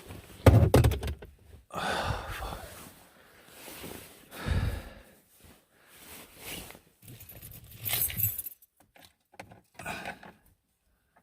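Handling noises: a jangle of keys with clicks, knocks and rustles coming in separate irregular bursts.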